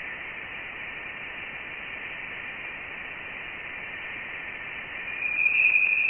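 Spacecraft radio emissions played back as sound: a steady, thin hiss with a faint tone inside it, swelling louder about five seconds in.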